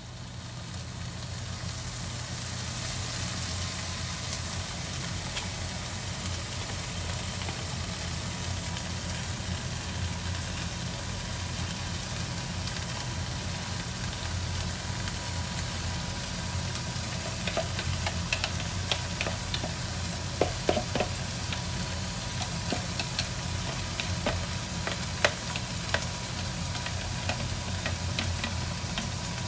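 Pork belly slices sizzling steadily in a frying pan over a low hum. From about halfway through, scattered clicks and taps come in as chopsticks scrape batter out of a plastic cup onto the meat.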